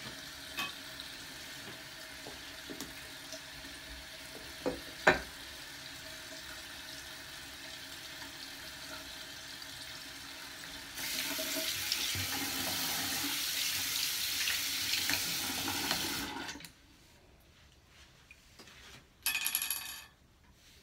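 Water running in a bathroom: a steady hiss that gets louder about eleven seconds in, then cuts off suddenly about five seconds later. A sharp click comes about five seconds in, and a short scraping burst comes near the end.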